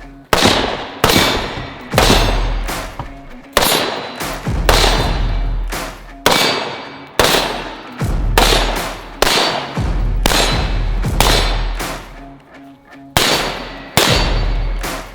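Gunshots fired through a car's windshield, roughly one a second with a gap near the end, each with a long ringing tail, over background music with a heavy bass.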